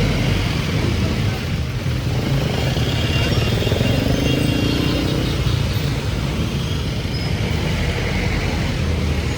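Steady traffic and vehicle engine noise mixed with heavy rain, with no single event standing out.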